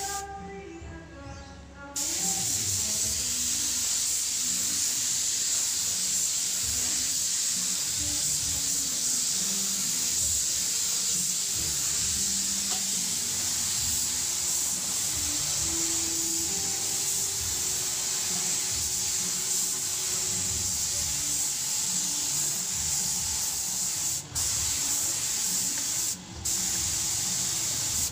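Compressed-air paint spray gun hissing steadily as it lays down two-part PU clear coat, with two brief breaks in the spray near the end. Background music plays for the first two seconds, before the spraying starts.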